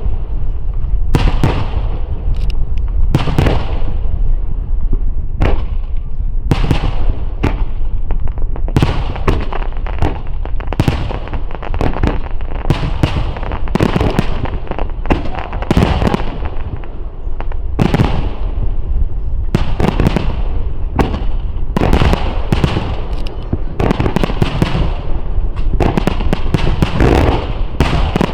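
Finale starmine fireworks display: a rapid, continuous barrage of aerial shell bursts, several bangs a second at times, over a steady low rumble.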